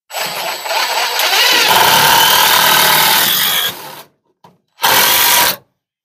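Power drill running for about four seconds, then a second short burst a second later.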